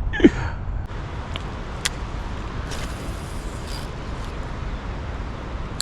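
Steady low rumble of road traffic, with a single faint click about two seconds in.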